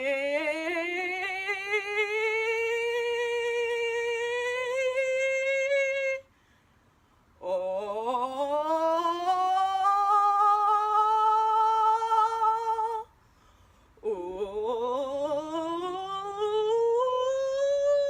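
A woman's voice singing three long vowel tones, the first an 'ee', each sliding up from a low pitch to a high one and held with a wavering wobble, with short breaks between them.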